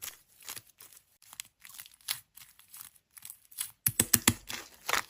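Slime being squished and worked by hand: irregular sticky crackles and pops, getting busier and louder about four seconds in.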